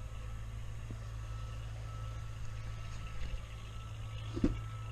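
Steady low hum of an idling vehicle engine, with a single short knock about four and a half seconds in.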